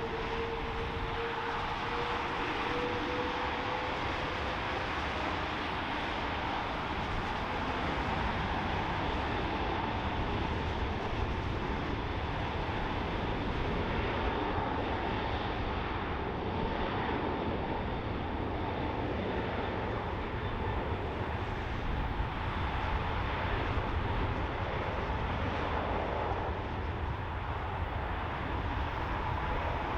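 Jet airliner engines running steadily, with a whine near 1 kHz and a tone that rises slightly in the first few seconds. Wind rumbles on the microphone throughout.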